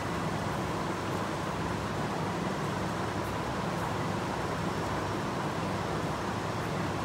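Steady background noise of a metro station concourse: a constant low hum with an even hiss over it and a faint steady tone, with no distinct events.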